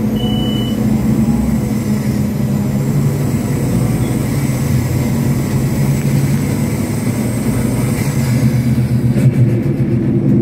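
Scania OmniCity city bus's rear-mounted diesel engine running steadily as the bus drives, heard from inside the passenger cabin. A short high beep sounds near the start.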